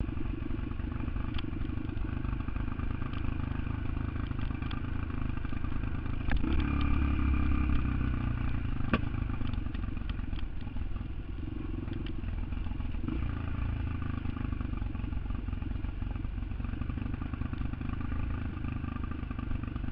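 An engine running steadily, louder for a couple of seconds about six seconds in, with scattered clicks and clatter.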